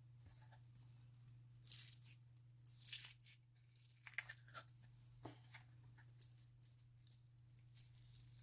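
Glitter slime being stretched and squished by hand, giving soft sticky crackles and pops at irregular moments, over a steady low hum.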